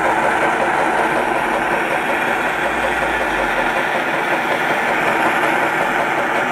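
Robinson hot air engine running at speed, with the steady rushing hiss of its small gas burner and a faint regular beat from the engine's moving parts.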